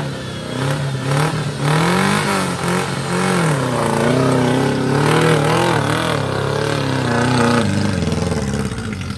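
Off-road 4x4's engine revving up and down repeatedly under load, its pitch rising and falling, easing off near the end.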